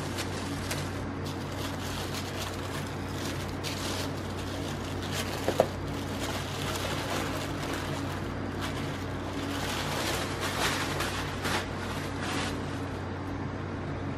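Irregular clicks and rustles from handling, with one sharper click about five and a half seconds in, over a steady low machine hum.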